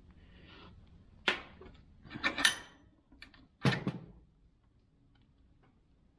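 Cast-iron bench vise being cranked down to crush a cable lug onto 6-gauge wire: a few metal clanks and scrapes from the vise handle, about a second apart, the last one the heaviest.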